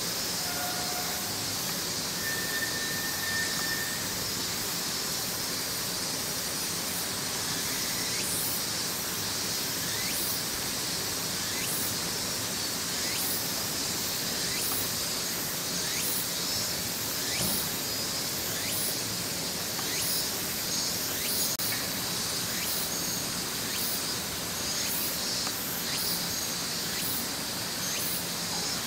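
Cicadas singing in summer: a steady high hiss, with a pulsing buzz that repeats about once a second from about eight seconds in.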